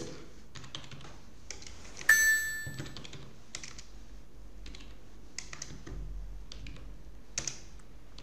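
Computer keyboard keystrokes, sparse and scattered clicks while text is typed. About two seconds in, a single bright chime rings out and fades over about a second, the loudest sound here.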